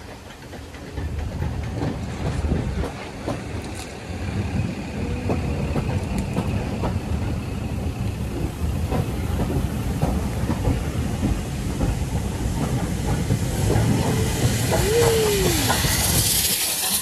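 Steam train running along the track: a steady rumble of the coaches with the clack of wheels over rail joints. Steam hiss swells over the last few seconds, and a short falling squeal comes near the end.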